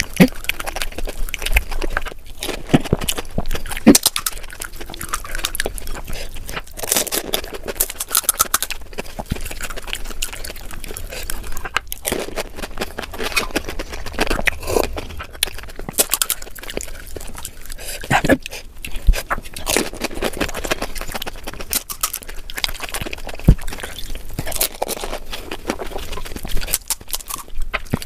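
Close-miked eating of pani puri: crisp hollow puri shells cracked open and crunched, with chewing between bites, heard as a steady run of sharp crackles and clicks.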